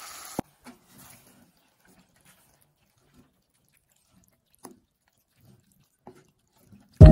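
A wooden spoon stirring thick cooked beans in a saucepan: a few faint, scattered wet squelches and scrapes, with a click about half a second in. At the very end, loud chiming music starts.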